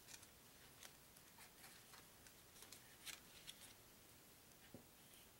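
Near silence with faint, scattered ticks and rustles of fingers handling a strip of cardboard trivia cards.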